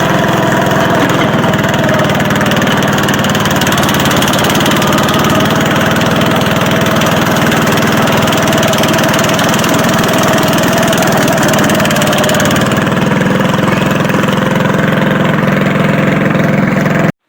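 Predator 212cc single-cylinder four-stroke engine on a Wheel Horse garden tractor, fitted with a Stage 1 kit and an open pipe exhaust, running loudly at a steady speed. The sound cuts off abruptly near the end.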